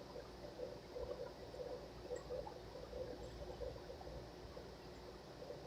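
Faint, irregular chewing of a mouthful of hamburger, with small wet mouth sounds.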